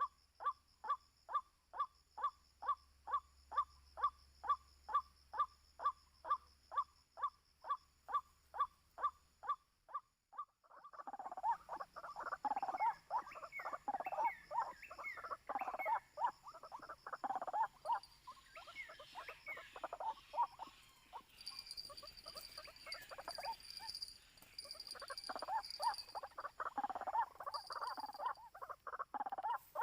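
White-breasted waterhen calling: a steady series of single call notes, about three a second. After a short break about ten seconds in, a louder, irregular jumble of croaking calls with rising and falling notes.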